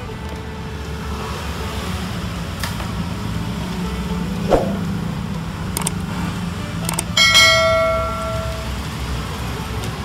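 Two mouse clicks, then a ringing notification-bell ding a little after halfway that fades over about a second and a half. This is the sound effect of a subscribe-button overlay. A few light taps come earlier, over a steady low hum.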